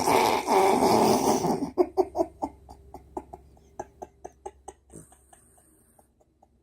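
Dog snoring: one loud snore lasting just under two seconds, followed by a run of short fluttering clicks that fade away over the next few seconds.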